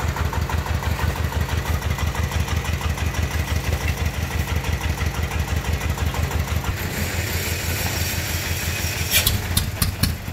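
Single-cylinder diesel engine of a công nông dump truck running with a steady, even chug; its note changes about seven seconds in. A few sharp knocks sound near the end.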